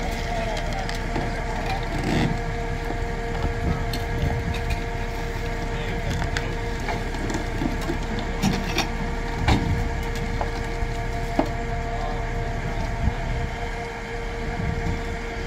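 Burning Volkswagen Scirocco: irregular crackling and sharp pops from the fire, with louder pops a few times. Under it, a steady held tone.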